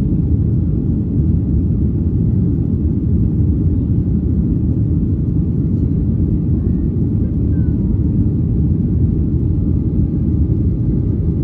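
Steady low rumble of a Boeing 737's engines and airflow heard inside the passenger cabin during the climb after takeoff.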